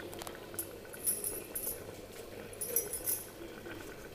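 Curry simmering in a covered steel pot on a gas stove, a faint steady bubbling hiss. Short high-pitched chirps come twice, about a second in and again near three seconds.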